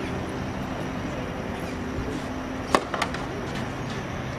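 Tennis ball hit with a racket: one sharp pop a little past halfway, then a softer knock about a quarter second later, over a low steady hum.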